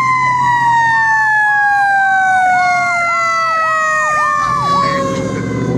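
Fire engine sirens as the truck approaches. One long wail slides steadily down in pitch, while a second siren yelps over it at about two cycles a second. A heavy engine rumble rises near the end as the truck draws close.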